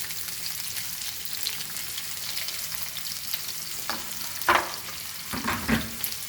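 Steady sizzle of spices frying in hot oil in a pan, with a few short knocks against the pan in the second half, the loudest about four and a half seconds in.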